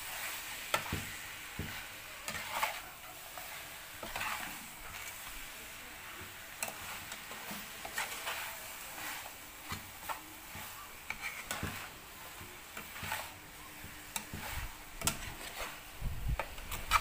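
A metal spatula stirs and scrapes pieces of catfish and basil leaves in a frying pan, with irregular scrapes and taps against the pan over a steady sizzle of hot oil. A low rumble comes in near the end.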